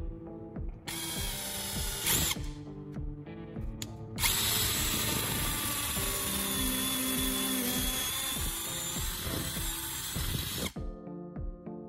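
Power drill boring a twist bit into a wooden handle: a short burst about a second in, then a steady run of about six seconds that stops shortly before the end. Background music plays underneath.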